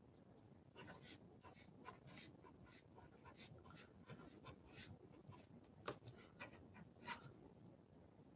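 Marker pen writing on paper: a string of short, faint scratchy strokes as numbers, letters and signs are written out.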